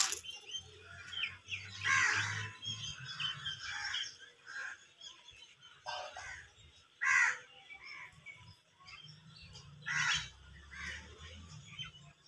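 Wild birds calling: about four loud, harsh calls a few seconds apart over softer, scattered chirping.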